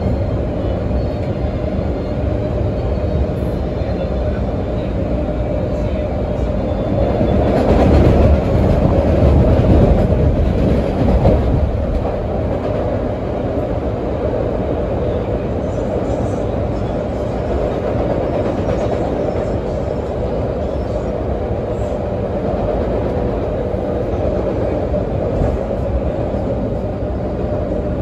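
Running noise heard from inside a moving CTA Orange Line rapid-transit railcar: a steady rumble of wheels and rails with a constant hum, growing louder for a few seconds about a quarter of the way in.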